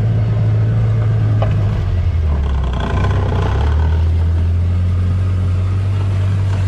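Side-by-side UTV engine running steadily while driving, heard from inside the open cab. About two seconds in, the engine note drops lower as it eases off.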